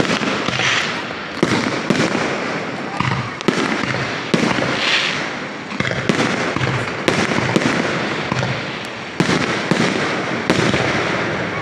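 Aerial fireworks bursting overhead in a rapid series of sharp bangs, about one a second, each trailing off as it fades.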